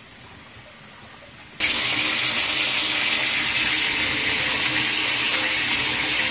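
High-volume flood coolant gushing from a 3D-printed spray head around a CNC mill spindle and splashing across the table: a quiet hiss at first, then, about a second and a half in, a sudden loud, steady rush of spraying water with a faint machine hum beneath it.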